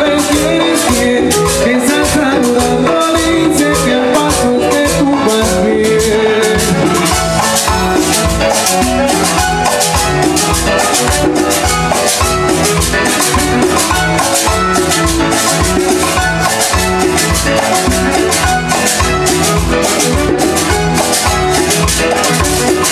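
Salsa band playing, with a steady drum beat, shakers and a bass line.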